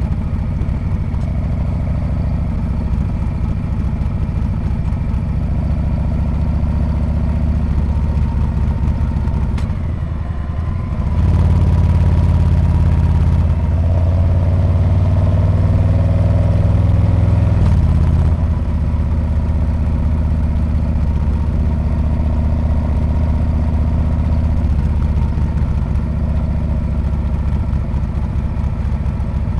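Exhaust of a Harley-Davidson Street Bob's V-twin engine heard while riding. The note dips briefly about ten seconds in, then grows louder for several seconds as the engine pulls, and settles back to a steady run.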